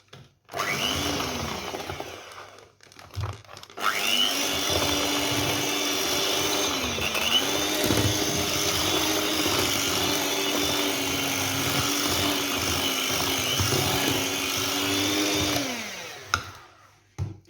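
Electric mixer beating cake batter: a short run of about two seconds, then a longer steady run of about twelve seconds. The motor's whine rises as each run starts and falls away as it stops.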